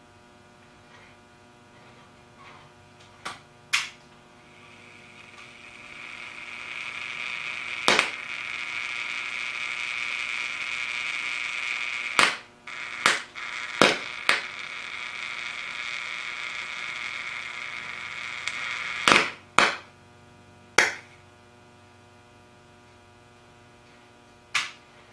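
Salt water boiling and fizzing around a CRT electron gun under mains voltage: a hiss that builds about five seconds in and cuts off after about nineteen seconds. About ten sharp pops break through it, sparks arcing between the gun's electrodes in the water.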